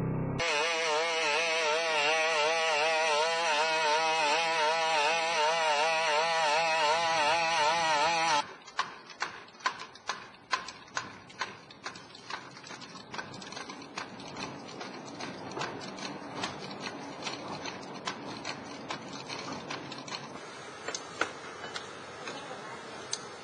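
BigDog robot's two-stroke engine and hydraulic pump buzzing, the pitch wavering quickly and regularly as the legs load and unload; it cuts off after about eight seconds. Then a tethered quadruped robot's feet make irregular sharp clicks and knocks on the concrete floor and cinder blocks, over a faint hiss.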